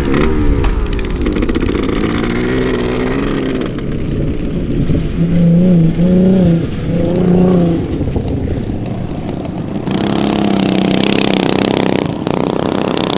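Motorcycle and car engines revving as they ride past, the pitch rising and falling with the throttle. The loudest, most wavering revs come around the middle, and a steadier engine note follows in the last few seconds.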